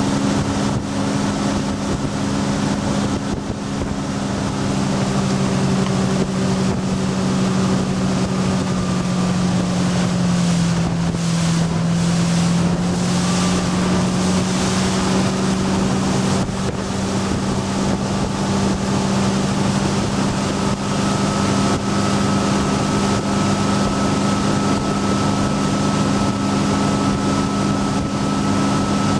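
Ski tow boat's engine running steadily at towing speed, heard from aboard, with water rushing past the hull and wind on the microphone. The engine note dips slightly for a couple of seconds about ten seconds in, then steadies.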